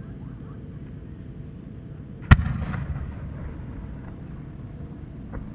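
One loud boom as a No. 10 (about 30 cm) aerial firework shell is fired from its mortar, about two seconds in, followed by a rolling echo that dies away; a small pop sounds near the end.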